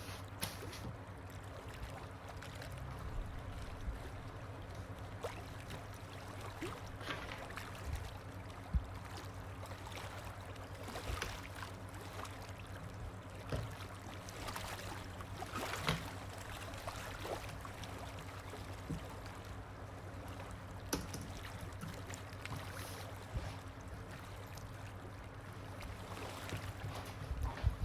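Ambient rain-and-water soundscape: a steady wash of water with scattered drips and splashes, over a low steady hum.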